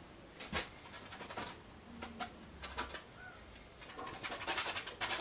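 Bristle brush scrubbing oil paint onto a canvas: a few short scratchy strokes, then continuous rubbing from about four seconds in.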